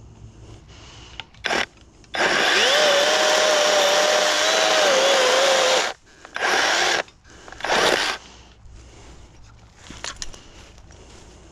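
Kobalt battery-powered electric chainsaw cutting into resin-heavy pine fatwood. A brief blip about a second and a half in is followed by about four seconds of running with a steady motor whine, then two shorter bursts of about a second each.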